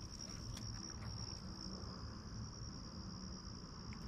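Steady high-pitched insect chorus, with a few faint clicks from handling.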